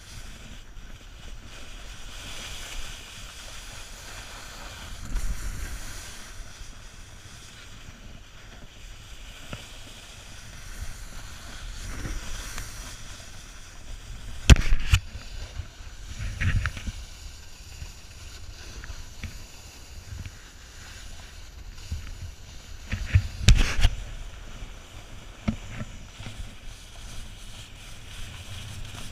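Skis sliding and scraping over packed snow, with wind rushing on the microphone. Sharp knocks stand out about halfway through and again about nine seconds later.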